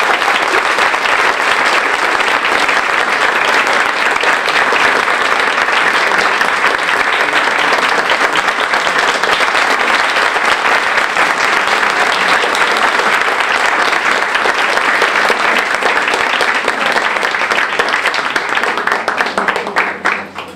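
Audience applauding steadily, thinning to scattered separate claps near the end.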